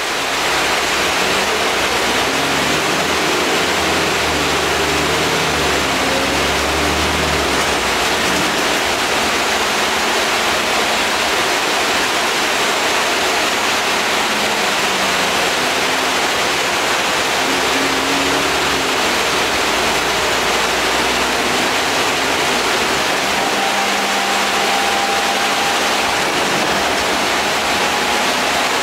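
Steady, loud air-conditioning hiss in the lower deck of an Alexander Dennis Enviro 400 double-decker bus on the move, with the diesel engine's low hum underneath, rising and falling in pitch.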